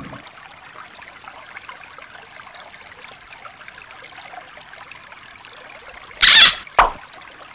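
Shallow stream trickling steadily over rocks. About six seconds in come two short, much louder noises close together.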